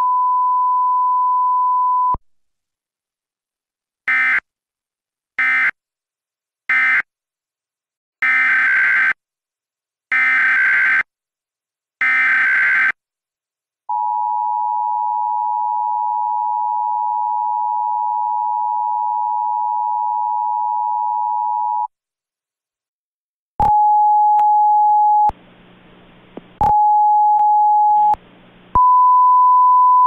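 Emergency Alert System signalling tones. A steady beep of about two seconds is followed by three short and then three longer bursts of screechy digital SAME header data, and then the eight-second two-tone attention signal. Near the end a lower steady tone alternates twice with a buzzy rasp, and another steady beep follows.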